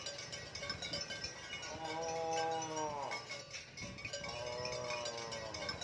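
Two long cow moos, each falling in pitch at the end, over background music with a chiming melody.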